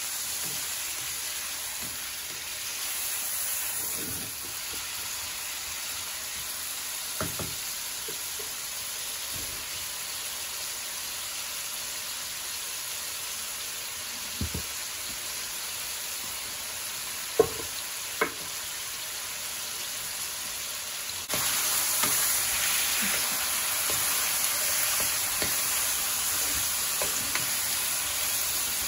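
Boneless chicken pieces sizzling as they fry in hot desi ghee in a nonstick wok, stirred with a wooden spatula that knocks against the pan a few times. The sizzle grows louder about two-thirds of the way through.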